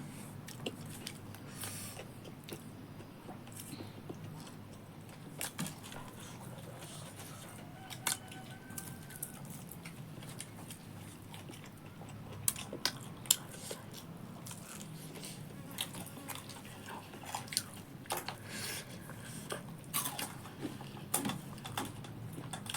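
A person chewing and crunching food close to the microphone, with irregular crisp crunches and mouth clicks. The loudest bites come about halfway through.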